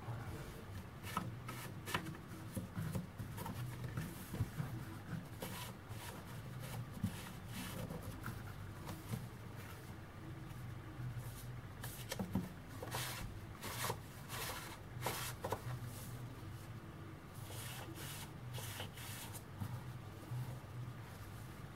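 Hands handling a cardboard board book, turning its thick pages, making irregular clicks, taps and rustles over a low steady hum.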